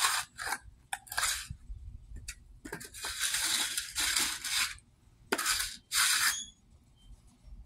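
A steel concrete finishing tool scraping along the edge of a wet, freshly poured concrete slab in about eight short strokes, some brief and some about half a second long, with gaps between them.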